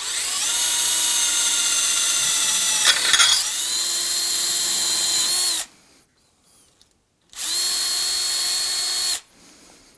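Bosch 12V cordless drill-driver drilling into the broken screw in a steel wheel hub, with a steady motor whine. It runs for about five and a half seconds with a brief crunch as the bit bites about three seconds in, stops, then runs again for about two seconds near the end. The hole is being drilled out to cut a new M6 thread.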